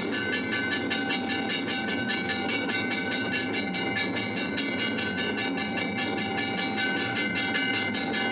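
Temple aarti bells and percussion clanging in a fast, steady rhythm, several strokes a second, with a bright ringing tone held over the top.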